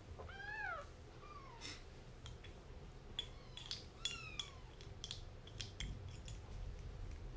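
Kitten mewing, about five short high mews that rise and fall in pitch over the first few seconds, with scattered sharp clicks from feeding and a plastic spoon in the ceramic food bowls.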